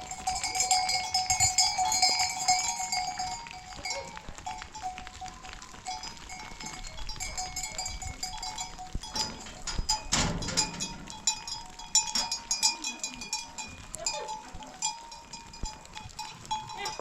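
Bells on a flock of sheep and goats, many small bells ringing and clanking together. They are loudest in the first few seconds and jangle again about ten seconds in.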